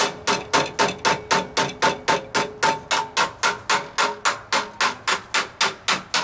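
Hammer striking a sheet-metal floor pan patch, tapping a stiffening bead into it by hand: steady blows about four a second, each with a short metallic ring.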